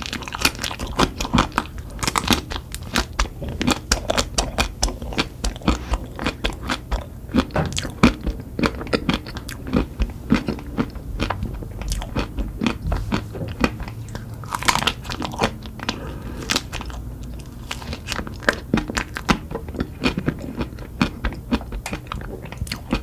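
Close-miked eating: a person biting and chewing crunchy food, a dense run of crackles, with one louder crunch about two-thirds of the way through.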